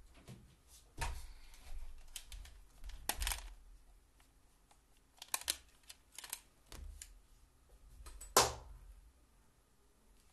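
Scattered clicks and knocks of small objects being handled and set down on a desk, with the loudest knock about eight seconds in.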